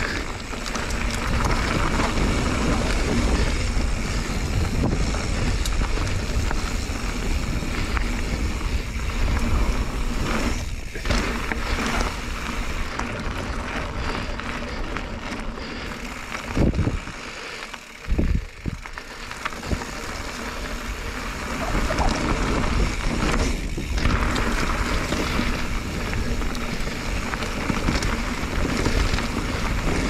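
Wind rushing over an action camera's microphone as a mountain bike rolls fast along a dirt and gravel trail, with tyre noise and a few sharp knocks from the bike over bumps. The rush eases off briefly a little past halfway, then picks up again.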